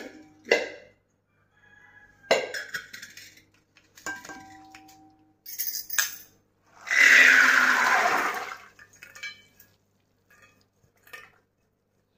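Metal pots clinking and knocking as a pressure cooker and its lid are handled, one knock ringing briefly. About seven seconds in, water pours into the cooker over soaked legumes for just over a second, the loudest sound here.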